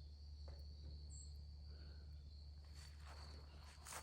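Faint steady high-pitched trill of crickets, with a few soft rustles in the second half.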